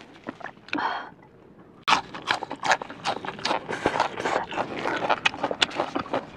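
Close-miked crunchy chewing of a mouthful of raw water celery, starting about two seconds in as a dense run of crisp crackles and clicks.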